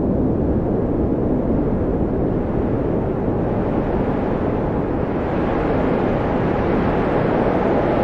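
Blizzard wind: a steady, heavy rushing with a faint whistling tone, turning hissier about halfway through.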